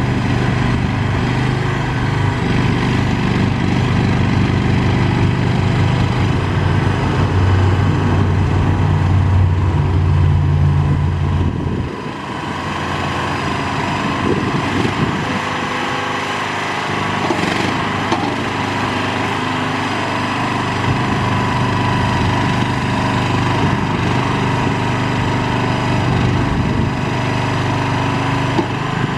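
Small skid steer loader's engine running steadily. About twelve seconds in its deep note drops away, then comes back from around the twenty-second mark.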